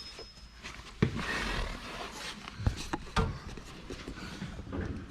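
Knocks and scraping as the mower deck's anti-sway bar is handled and worked into position: a sharp knock about a second in, a second of scraping, then two more knocks half a second apart.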